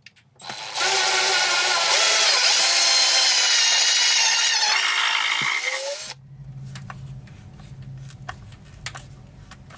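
Cordless drill-driver running for about five seconds, driving a screw into a plastic bilge pump's strainer base, then stopping. Quieter scraping and small clicks follow as the fastening is worked by hand.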